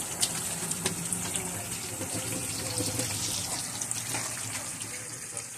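Kitchen tap running into a stainless-steel sink as a hand is rinsed under it: a steady rush of water.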